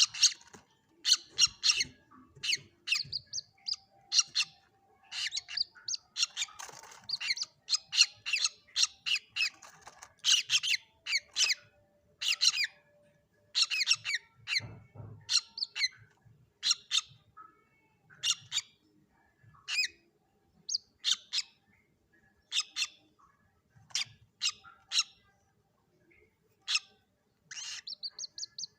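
Common moorhen chicks calling: a long irregular run of short, sharp, high-pitched peeps and squawks, thinning out and pausing for a couple of seconds near the end.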